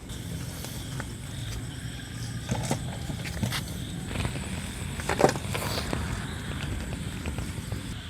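Scattered knocks and scrapes of a cooking pot and lid being handled while the biryani pot is sealed for dum, the loudest knock about five seconds in, over a steady low rumble.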